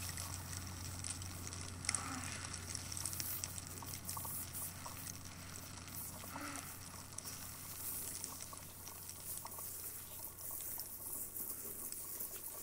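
Steady crackling hiss over a low hum, with scattered faint clicks.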